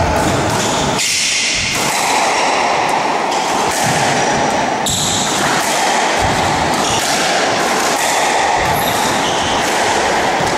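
Squash rally: the ball knocking sharply off rackets and the court walls at irregular intervals, about one hit a second, echoing in the court over a steady background hiss.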